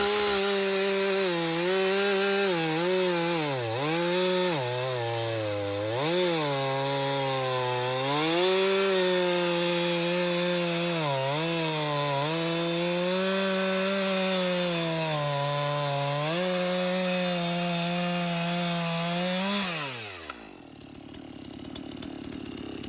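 Chainsaw revving up and cutting through a black cherry log, its pitch dipping and recovering again and again as the chain bites into the wood. About twenty seconds in it winds down off the throttle.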